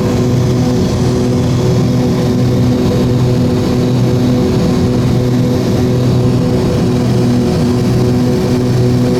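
The Cessna 340A's twin 310 hp Continental TSIO-520 turbocharged piston engines and propellers running at steady power, a constant drone with a slow, regular pulsing beat between the two engines.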